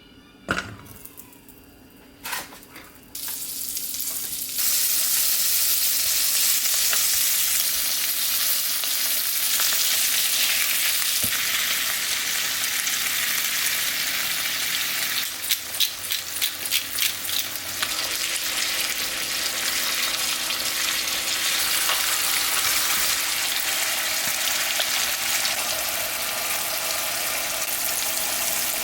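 Food sizzling as it fries in a hot pan. The sizzle starts a few seconds in, quickly becomes loud and stays steady. About halfway through comes a run of sharp clicks from a utensil working against the pan.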